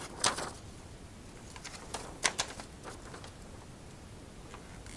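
A folded paper pamphlet being opened out and handled: a few short paper crinkles and rustles, most of them in the first three seconds, with one more near the end.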